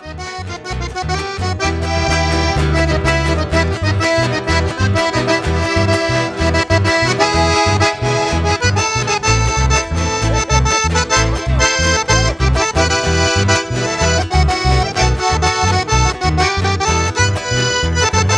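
Live, amplified chamamé band playing an instrumental opening: an accordion carries the melody over a pulsing bass line. The music fades in over the first couple of seconds, then runs at full level.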